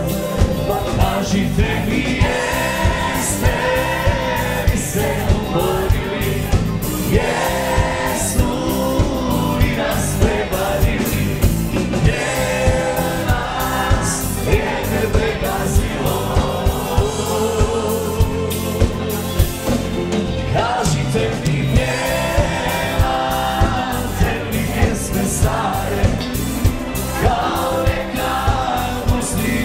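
Live dance band playing a song with a steady drum beat, with a crowd singing along together in chorus.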